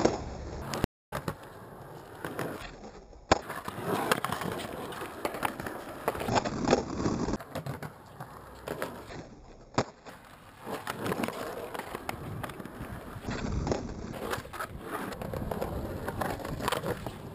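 Skateboard wheels rolling over rough concrete and asphalt, broken several times by sharp board clacks from pops and landings.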